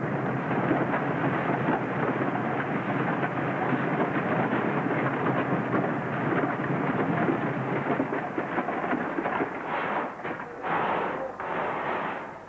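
A concrete mixing plant at work: sand and aggregate tipping from a weigh hopper and a drum mixer churning it with cement and water into concrete, a steady dense rushing noise that breaks into a few separate surges near the end.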